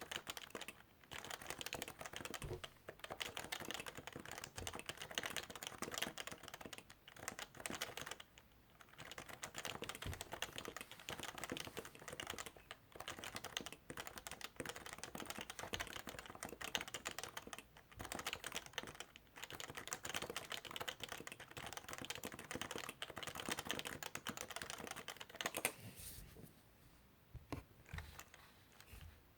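Fast, continuous typing on a Topre Realforce keyboard with electrostatic capacitive rubber-dome switches, keys clacking in quick runs broken by brief pauses and a longer lull near the end.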